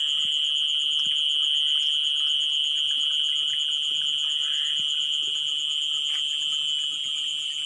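Night insects such as crickets keep up a steady, shrill, high-pitched chorus, with a fainter, faster pulsing chirp running above it.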